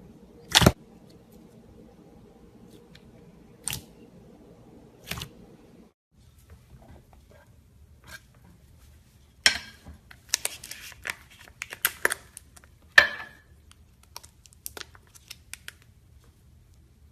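Slime being worked by hand: a few sharp pops, then a dense run of snapping, crackling clicks about halfway through, tailing off into small clicks.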